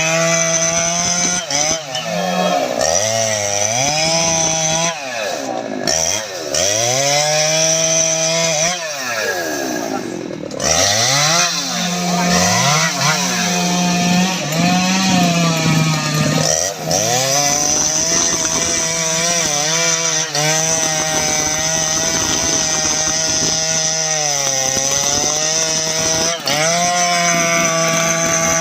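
Jonsered 2095 Turbo 93.6 cc two-stroke chainsaw running at full throttle while cutting teak wood, its engine pitch dropping repeatedly as the chain bogs in the cut and climbing back each time.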